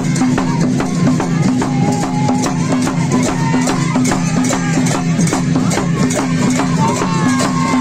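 Kirant Rai dhol, wooden double-headed barrel drums, beaten with a stick and hand in a quick, steady dance beat for the Sakela circle dance, with bright sharp accents on each stroke.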